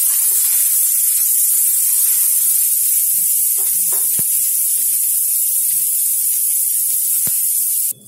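Strips of green capsicum sizzling in hot oil in a frying pan over a medium flame: a steady high hiss with a couple of faint ticks, cut off suddenly just before the end.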